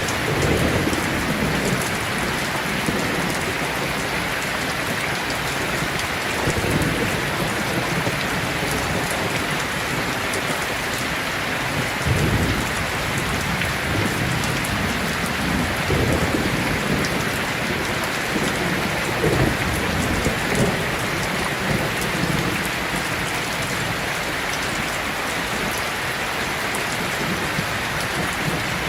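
Heavy rain falling in a steady hiss, with low rolls of thunder swelling up several times, the strongest about twelve seconds in and again near twenty seconds.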